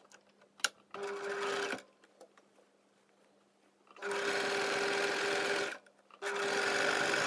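Electric domestic sewing machine stitching a trouser inseam in three runs: a short one about a second in, then two longer runs from about four seconds in with a brief stop between them. A sharp click comes just before the first run.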